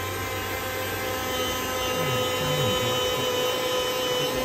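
Chef'sChoice electric food slicer running with a steady motor hum while prosciutto is pushed through its spinning blade.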